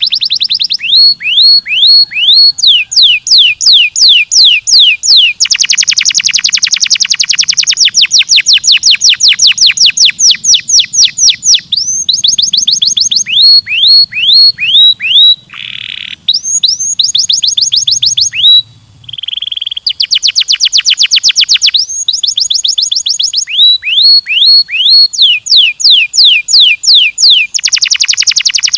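Canary singing a loud, continuous song of rapid rolls: runs of quickly repeated falling whistled notes, each phrase at its own speed. Two short buzzy notes come near the middle.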